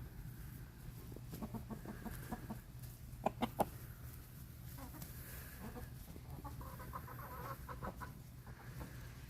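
Chickens clucking in short runs of quick calls, with three louder, sharp clucks about three seconds in and another run near the end, over a low steady hum.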